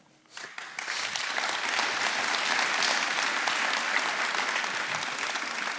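Audience applauding in a hall, building up about half a second in and then holding steady.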